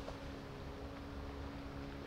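A distant motor's steady drone, a few held tones over a low rumble.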